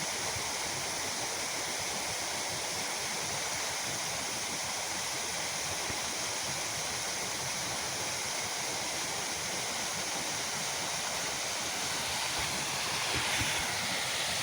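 Waterfall: a steady rush of falling water, swelling slightly near the end.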